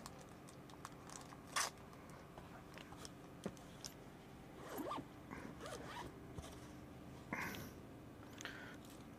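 Zipper on a delivery backpack being pulled open, with scattered handling clicks and short rustles of paper receipts.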